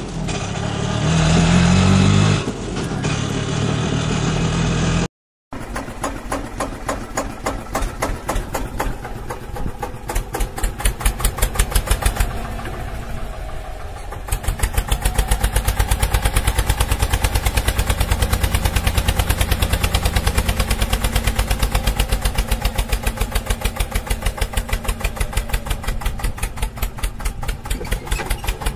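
Tractor engine sound effect running with a steady putt of about four beats a second, laid over a plastic toy tractor that has no engine of its own. It cuts out completely for a moment about five seconds in, then runs on unchanged.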